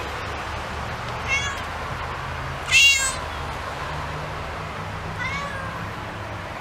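A domestic cat meowing three times, the middle meow the loudest, over a steady low hum.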